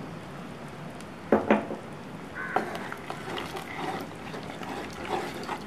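A wooden spatula stirs a wet tomato-onion masala, just thinned with water, in a clay pot, with soft scraping and sloshing. Two sharp knocks come close together about a second and a half in.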